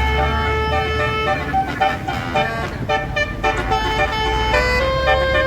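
Bus's roof-mounted Basuri multi-trumpet telolet horn playing a melody of held notes that step from pitch to pitch, with the low rumble of the bus engine running underneath.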